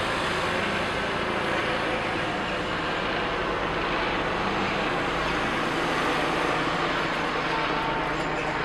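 Police helicopter flying overhead, its rotor giving a steady, fast chop.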